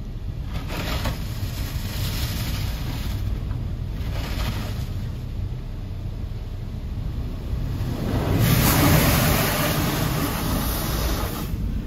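Water jets from a Ryko Radius HT touchless car wash spraying onto the car, heard from inside the cabin. The spray comes in passing surges: two shorter ones early on, then the heaviest from about eight to eleven seconds in. A steady low rumble runs underneath.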